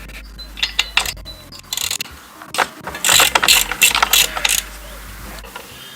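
Irregular metallic clicking and rattling of hand tools working on a petrol lawn mower's engine while the spark plug and air filter are taken out. The clicks come thickest in the middle of the stretch.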